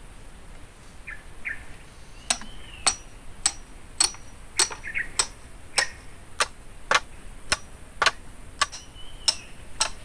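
A hammer striking the back of a blade wedged into a green bamboo stalk, splitting it. About a dozen sharp knocks, nearly two a second, starting about two seconds in. Small birds chirp now and then.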